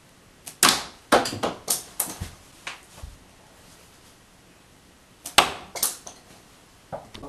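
Pencils fired from a homemade rubber-band pencil shooter striking a door and clattering down, in two bursts of sharp wooden clicks and taps, each a loud hit followed by quicker, fading clatters.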